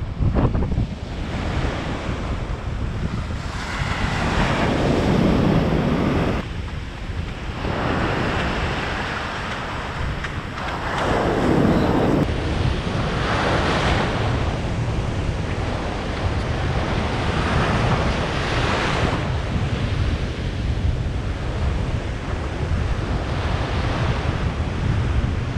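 Surf breaking and washing up a sandy beach, swelling and fading every few seconds, with wind buffeting the microphone in a steady low rumble.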